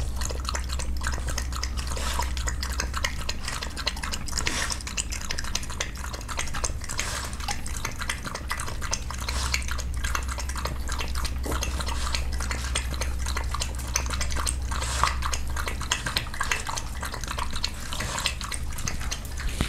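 Boston terrier eating wet food from a plastic bowl: a quick, continuous run of wet lapping and small clicks of its tongue and teeth against the bowl.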